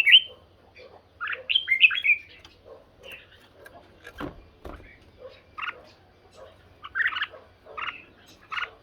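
Red-whiskered bulbuls singing against each other in short chirpy phrases that come again and again. Two brief knocks sound about four seconds in.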